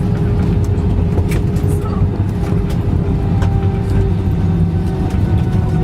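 Airbus A320 cabin noise: a steady low rumble of the engines and airflow, with a steady hum over it.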